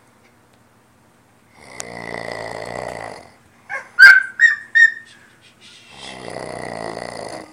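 A man snoring in his sleep: two long snores, each about a second and a half, one starting about a second and a half in and one near the end. Between them, about four seconds in, a quick run of short, sharp, high squeaks is the loudest sound.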